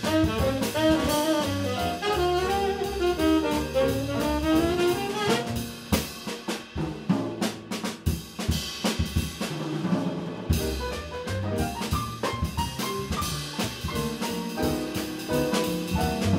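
Live small-group jazz on saxophone, piano, upright bass and drum kit. A saxophone phrase runs over the band for about the first five seconds, then the drums play a short break, and other instruments take up the melody again about ten seconds in.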